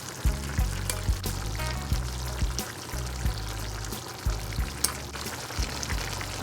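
Background music with a bass line and a regular beat, over a steady hiss.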